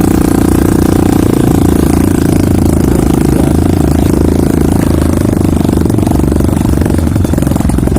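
Motorcycle engine running steadily under way, with a constant low hum.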